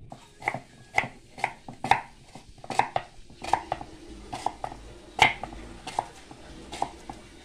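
Kitchen knife slicing a red onion on a wooden chopping board: a sharp knock of the blade on the board with each cut, about two a second and unevenly spaced.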